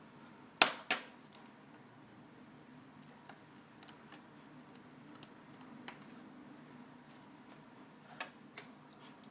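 Light clicks and taps of small hand tools on phone parts: one sharp click about half a second in, the loudest, a softer one just after, then scattered faint ticks over a low steady hum.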